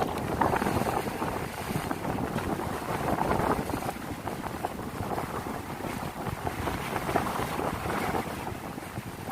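Wind buffeting the microphone over the steady wash of a rough, choppy sea.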